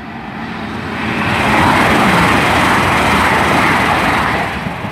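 Class 800 intercity train passing through the station at speed without stopping: a loud rush of wheel and air noise that swells, holds for a few seconds, then begins to fade near the end.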